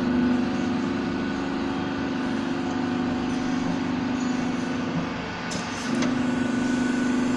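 A machine running steadily with a constant hum. It dips slightly for about a second some five seconds in, with a couple of faint clicks.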